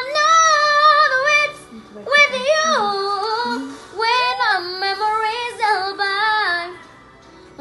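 A ten-year-old girl singing without accompaniment: three phrases of long held notes with vibrato and sliding vocal runs, with short breaths between them.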